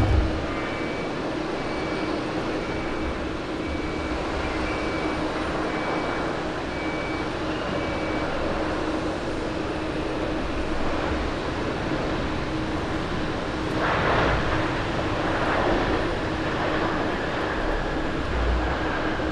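Boeing 787-9 Dreamliner's Rolls-Royce Trent 1000 jet engines during the landing rollout: a steady rush of jet noise over a low hum, swelling louder for a couple of seconds about two-thirds of the way through.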